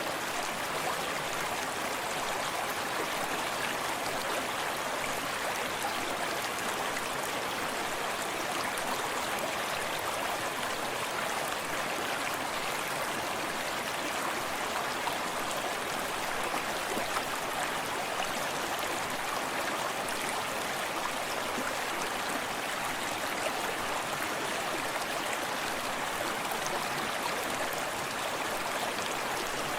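Small forest stream running steadily over rocks, with gently lapping water close by and an even rushing sound.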